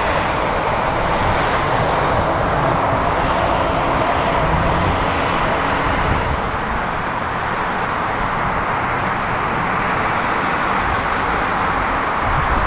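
HondaJet HA-420 business jet's two rear-mounted turbofan engines at takeoff power, a steady rushing jet noise through its takeoff roll and lift-off.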